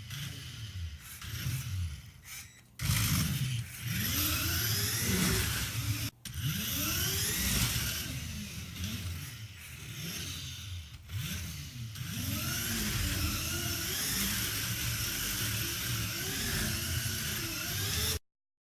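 Electric drive motors and gears of a Lego Technic RC car whining as it is driven, the pitch rising and falling again and again as it speeds up and slows down, with a few abrupt breaks. The sound cuts off suddenly near the end.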